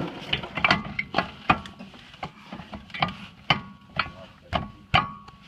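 A hammer striking a brake caliper to drive it onto the rotor of a 1998 Jeep Cherokee XJ: a series of sharp metal-on-metal blows, roughly two a second and unevenly spaced, several of them ringing briefly.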